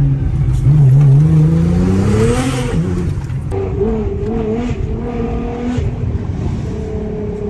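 Twin-turbo V6 of a heavily tuned Nissan GT-R R35, heard from inside the cabin, accelerating with its pitch rising for about two and a half seconds, then running on more steadily with a slightly wavering note.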